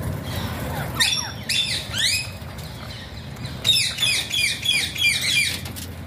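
Parakeets calling with harsh screeches: three calls between about one and two seconds in, then a quick run of calls, about four a second, in the second half.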